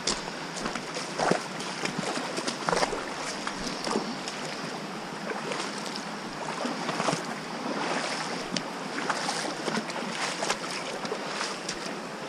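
Wading through a shallow creek on foot: water sloshing and splashing around the legs with each step, over the rush of the stream, with many short sharp clicks and knocks throughout.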